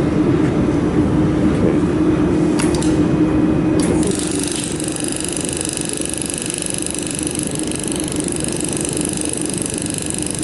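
Steady hum of a mold-repair laser welding machine and its fan and chiller, with two sharp clicks; about four seconds in a high buzzing tone starts and holds steady.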